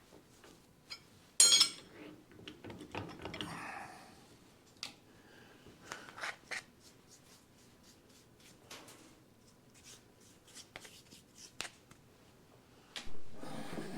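Metal tools and parts being handled and set down on a workbench: a sharp clatter about a second and a half in, a short scraping, then scattered clicks and knocks. No motor is running.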